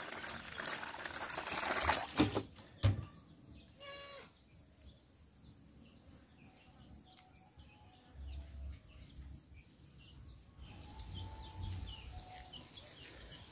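Water pouring into a plastic basin for about two seconds, then a single knock. After that it is quiet, with faint bird calls and soft handling noises.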